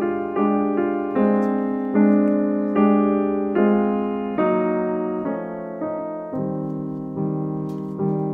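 Background music: keyboard chords, each struck and left to fade, a new chord a little under once a second.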